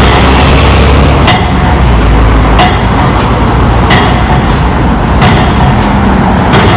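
Pile driver at work: a sharp hammer strike on the pile about every 1.3 seconds, six in all, over the constant running of the rig's engine.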